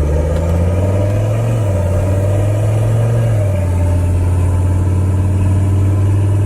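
Mercedes-Benz OM617.952 five-cylinder turbodiesel running under way, heard inside the closed cabin. It gives a loud, steady low drone whose pitch shifts slightly a couple of times, with a faint high whistle from the turbocharger in the second half.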